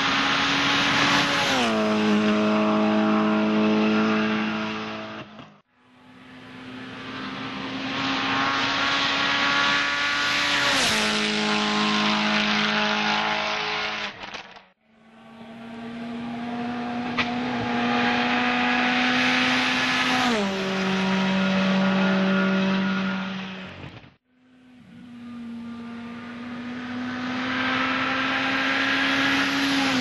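Four World Rally Cars pass one after another, their turbocharged four-cylinder engines at high revs. Each engine note rises in loudness as the car approaches, drops sharply in pitch as it goes past, then fades, and each pass cuts off abruptly. A sharp crack sounds during the second pass and again in the third.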